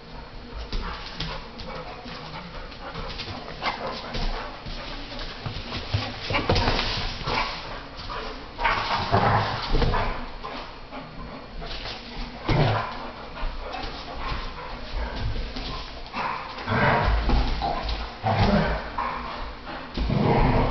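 Two pit bulls play-fighting over a towel, giving dog vocalisations in irregular bursts that get louder and more frequent from about six seconds in.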